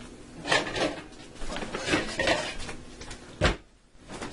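Pots and pan lids clattering and knocking as a lid is fetched out of a kitchen cupboard, with a few bursts of rattling and one heavier knock near the end.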